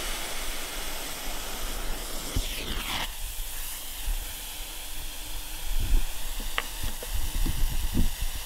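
Aerosol hairspray can hissing as spray escapes through a puncture, with a few short knocks in the second half.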